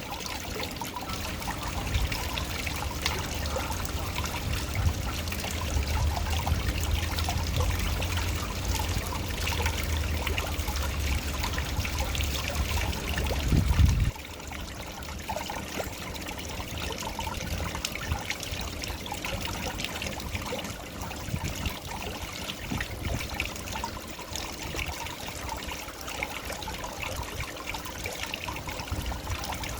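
Water of a small waterfall splashing and trickling steadily. A low rumble underneath stops suddenly about halfway through, leaving only the water.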